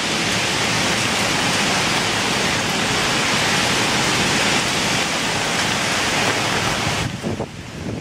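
Heavy storm rain pouring down in wind, a loud, steady hiss. About seven seconds in it drops suddenly to a quieter, gusting rush.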